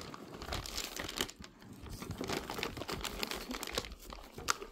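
A thin clear plastic bag crinkling and rustling in irregular bursts as gloved hands work it around a stainless-steel skillet.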